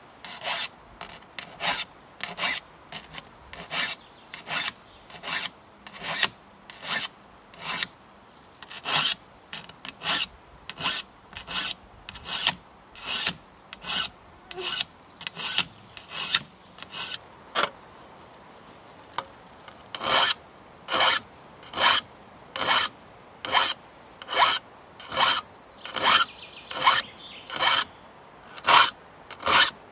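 A hand file rasping across the steel teeth of an old two-man crosscut saw, sharpening it tooth by tooth in even strokes about two a second, with a short pause about two-thirds of the way through.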